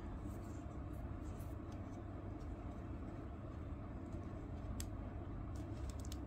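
A few faint clicks and taps of fingers on a small metal Ever-Ready safety razor tin as it is turned over and pried at, over a steady low hum.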